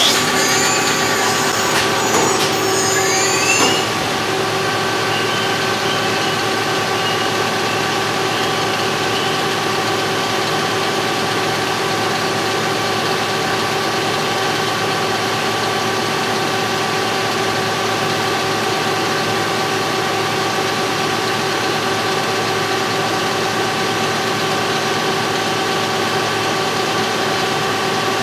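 CNC machine running with a steady hum made of several fixed tones. For the first few seconds there is louder cutting noise with sliding high-pitched squeals, which then stops.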